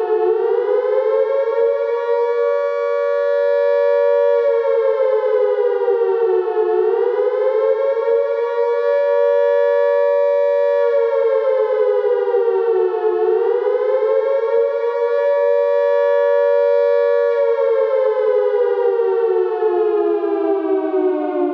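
British WW2 air-raid siren sounding the rising-and-falling wail of the air-raid warning, with two close tones sounding together. The pitch climbs, holds, then sinks about every six and a half seconds, and in the last few seconds it slides steadily lower as the siren winds down.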